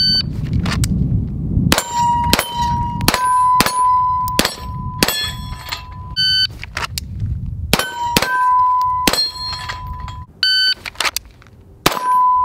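Semi-automatic pistol shots fired at steel plate targets, each hit followed by the steel ringing with a clear ding. The shots come in two quick strings about half a second apart, starting about two seconds in and again near eight seconds, with one more shot near the end.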